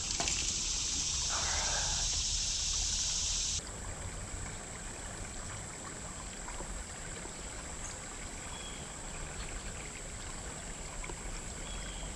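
Flowing creek water. A louder rushing hiss stops abruptly about three and a half seconds in, leaving a steady, fainter sound of running water.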